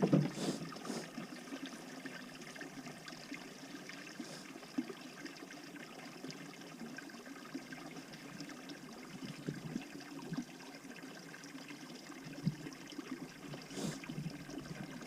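Steady, faint trickle of running water, with a few small knocks.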